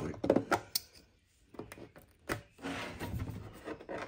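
Utility knife blade scraping and trimming the plastic edge of a freshly drilled hole in a plastic gas can, in short irregular scrapes and clicks, with a brief pause about a second in.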